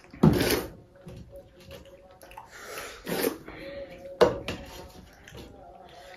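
Hands eating pakhala (rice in water) from stainless-steel dishes: wet squelching of fingers in watery rice and clinks of steel bowls and plates. There is a loud sudden sound just after the start, a softer one around three seconds, and a sharp knock a little after four seconds in.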